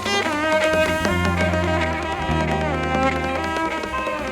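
Kantrum band playing an instrumental passage: a melody of sliding, pitched notes over a sustained low bass.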